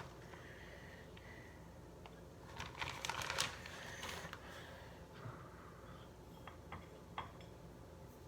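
Light rustling about three seconds in, then a few faint clicks and taps: cheese and a fajita being handled on a plate.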